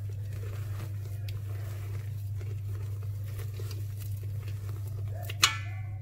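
Silicone spatula folding meringue into batter in a stainless steel bowl: soft squishing and scraping with faint ticks, over a steady low hum. Near the end, one sharp clink of the spatula against the metal bowl that rings briefly.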